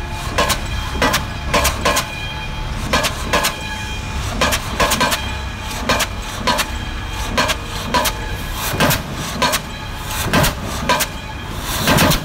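Diesel pile hammer driving a pile: sharp, loud blows about twice a second, often in close pairs, over the steady hum of the crane's engine. The strongest blow comes near the end.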